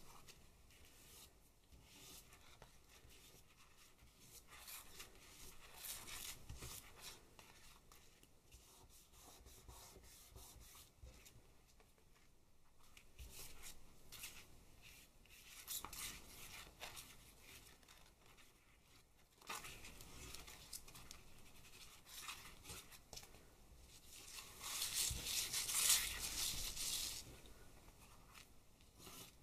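Thin plastic sheeting, cut from a paddling pool, rustling and crinkling as it is handled over a print on card. It comes in short bouts, the longest and loudest near the end.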